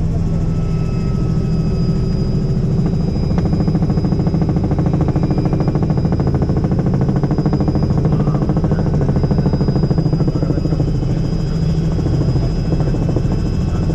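Robinson R66 turbine helicopter in flight: steady engine and rotor noise with rapid, even pulsing and a high steady whine, swelling slightly about three seconds in.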